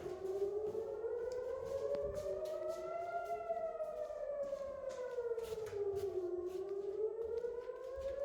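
Civil-defence air-raid siren wailing, its pitch rising slowly, falling, then rising again in a cycle of about six seconds: an alert for incoming rockets.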